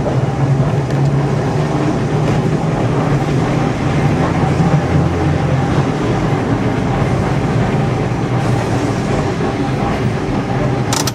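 Heritage electric tram running along its track, heard from the driver's platform: a steady hum from the motors and gear over the rumble of the wheels on the rails. A few sharp clicks come near the end.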